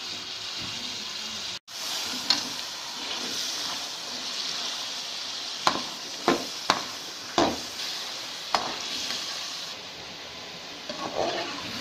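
Chicken pieces sizzling steadily as they fry in hot oil in an aluminium karahi. A metal spatula stirring them scrapes and knocks sharply against the pan about six times, most of the knocks between about five and nine seconds in.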